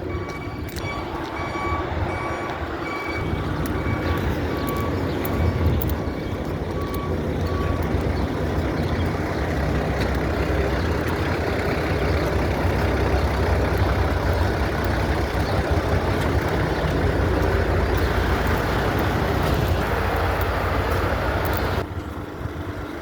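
Heavy diesel road-construction machinery and trucks running with a deep, steady rumble. A reversing alarm beeps repeatedly through the first several seconds. The rumble drops off sharply near the end.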